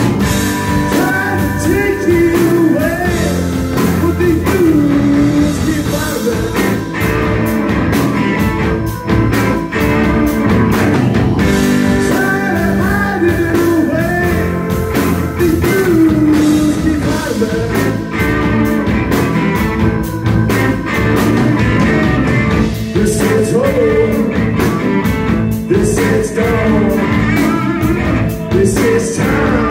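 Live blues-rock band playing: electric guitars, bass guitar and a Tama Star walnut drum kit with a Starphonic snare.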